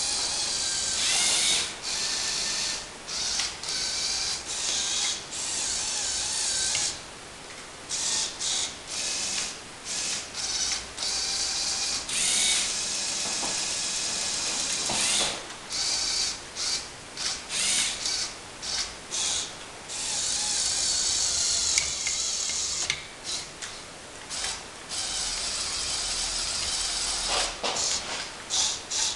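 Lego Technic Power Functions electric motors whirring through plastic gears. They are switched on and off in many short bursts, with a few longer runs lasting several seconds, as the remote-controlled excavator's functions are worked.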